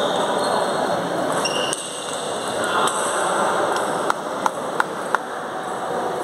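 Table tennis ball bouncing four times in quick succession, about three bounces a second, over the steady noise of a busy hall.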